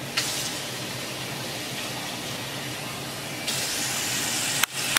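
Kitchen tap running water into a plastic salad spinner bowl to rinse broccoli, a steady gush that gets louder about three and a half seconds in. A short knock comes near the end.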